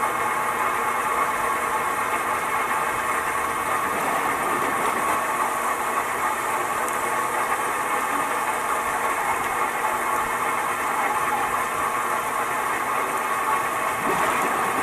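Bachellier V air injector and mixer running steadily: a constant mechanical hum over churning, bubbling water.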